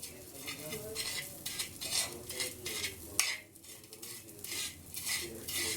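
A utensil scraping and grinding roasted borax into powder on metal, in quick repeated strokes.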